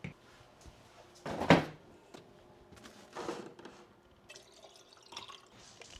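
Household handling noises: two short rustling bursts, the louder about a second and a half in and another about three seconds in, with faint clicks and knocks between.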